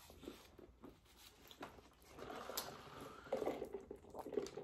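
Mouth sounds of eating fried chicken: soft chewing and wet smacking with a few small clicks. It is faint at first and louder in the second half.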